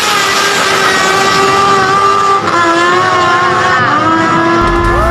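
Kawasaki Ninja H2's supercharged inline-four running hard as the bike accelerates away from the drag-strip start line. Its high engine note holds steady, with a small change in pitch about halfway through.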